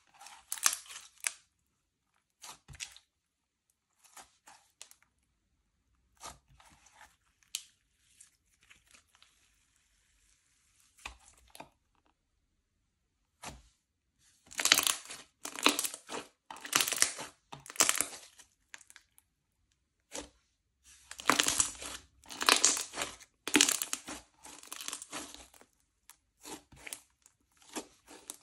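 Slime being squished, stretched and folded by hand, making crackling, popping sounds in irregular bursts with short quiet gaps, loudest in two dense stretches in the second half.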